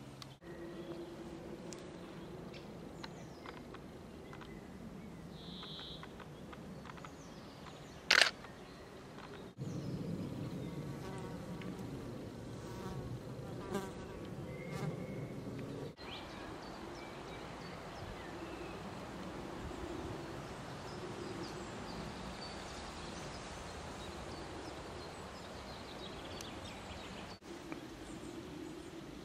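Flying insects buzzing, a steady low hum that breaks off and resumes abruptly a few times, with one short sharp crack about eight seconds in.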